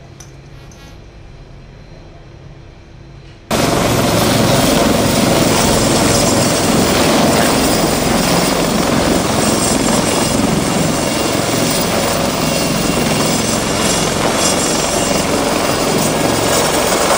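A low, quiet hum at first. After about three and a half seconds it gives way suddenly to the loud, steady sound of a Lynx-type naval helicopter's rotors and turbine as it lifts off a ship's flight deck and hovers.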